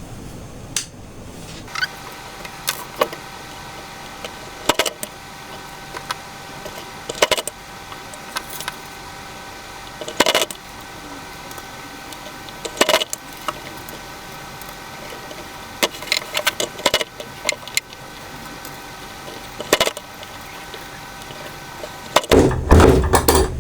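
Sharp clicks and knocks from a hand press-button machine and its metal snap parts being handled and pressed, one every few seconds, over a steady faint hum, with a louder burst of clattering near the end.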